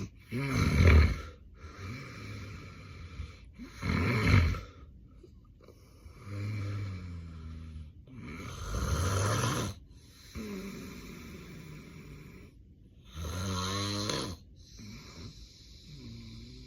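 A man snoring heavily in his sleep, with a loud snoring breath about every two to three seconds, some with a low buzzing rattle. The snoring comes from severe sleep apnea.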